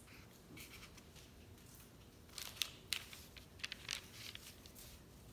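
Felt-tip marker scratching on paper as a figure is drawn, a quick run of short strokes in the second half of an otherwise faint stretch.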